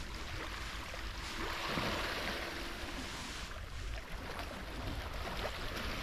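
Sea water washing against the rocky shore, with a steady low wind rumble on the microphone. The water noise swells up from about one second in and eases off after about three and a half seconds.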